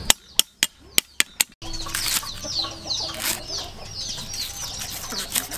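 Six sharp chops of a knife cutting through lemongrass stalks onto a wooden chopping block in the first second and a half. Then chickens chirping and clucking repeatedly in the background.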